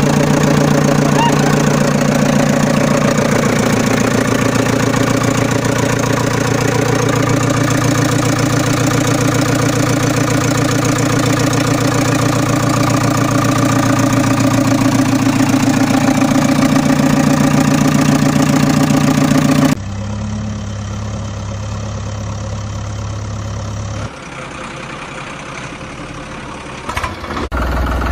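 Recorded vehicle engine idling, dubbed over toy play as a sound effect. A steady low engine run cuts abruptly to a quieter, different engine sound about twenty seconds in, drops again about four seconds later, and turns loud again near the end.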